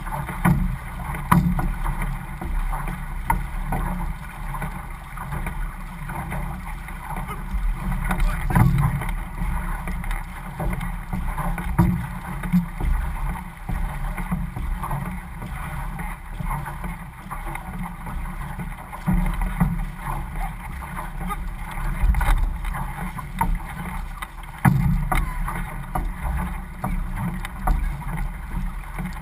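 Water rushing and splashing along an outrigger canoe's hull as the crew paddles, with a low rumble throughout and irregular louder surges.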